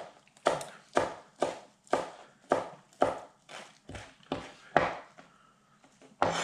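Chef's knife chopping flat-leaf parsley on a plastic cutting board, each stroke a sharp knock on the board, about two a second. The chopping pauses about five seconds in, then one more chop comes near the end.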